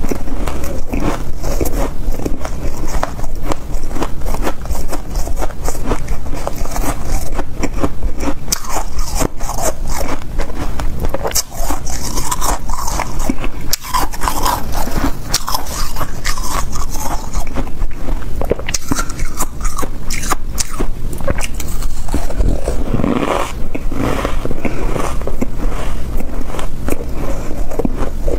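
A person biting and chewing powdery freezer frost: a dense, unbroken run of crisp crunches and crackles that stays steady and loud throughout.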